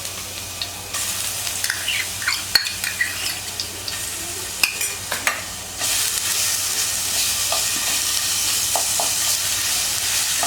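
Ginger-garlic paste frying in hot peanut oil in a pan, sizzling steadily while a ladle stirs and scrapes it with scattered clicks against the pan. The sizzle grows louder about a second in and again about six seconds in.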